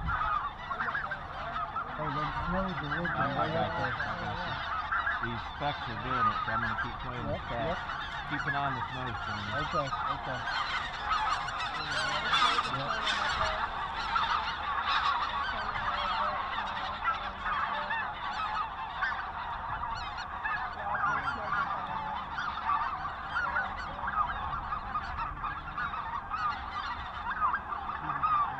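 A large flock of snow geese calling overhead: a continuous din of many overlapping high honks, growing fuller about midway as the flock swings in low over the decoys.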